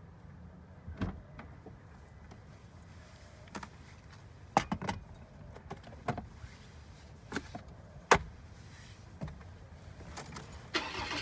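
Sharp clicks and knocks of car doors and keys being handled. Near the end the car's engine starts and runs steadily.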